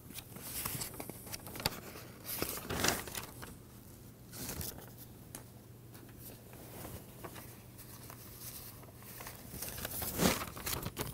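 Faint scattered rustles and soft clicks of small objects being handled at a desk. The strongest rustle comes near the end.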